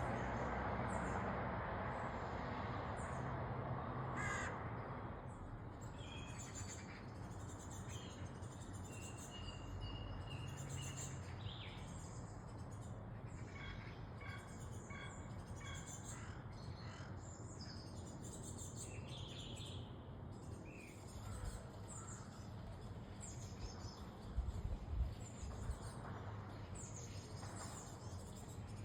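Morning birdsong: several birds chirping and calling, with a steady background rumble that fades over the first few seconds. A few low bumps come near the end.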